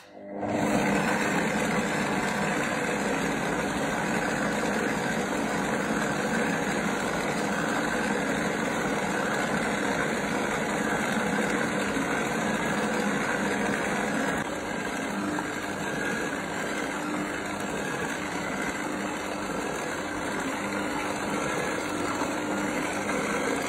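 Stand mixer's motor running steadily at speed 2 as its beater works flour into a bread dough.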